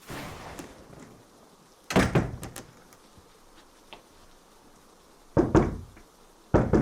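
Knocking on a door: three loud bursts of several quick blows each, about two, five and a half, and six and a half seconds in.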